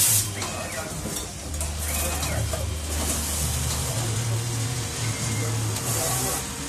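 Rikson automatic pocket-setting machine working: a steady low hum, with a short loud hiss right at the start and another about six seconds in.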